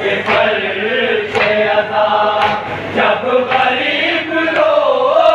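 A group of men chanting a noha, a Shia mourning lament, in unison, heard with the top end cut off as through a loudspeaker or a phone recording. Sharp slaps about once a second keep time, the chest-beating (matam) that goes with noha recitation.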